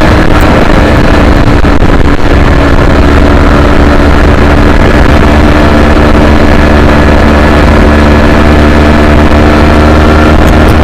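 Yamaha YZF-R3's 321 cc parallel-twin engine running hard at high revs at track speed, its pitch nearly steady, over a loud low wind rumble on the onboard microphone.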